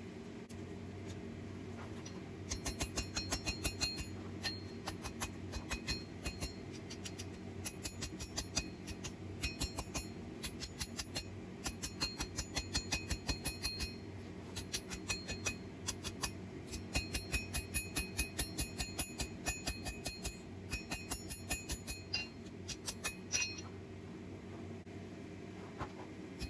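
Hammer striking hot steel on an anvil in rapid light blows, several a second, each with a bright metallic ring, broken by short pauses at the start and near the end. A steady low hum of a forge blower runs underneath.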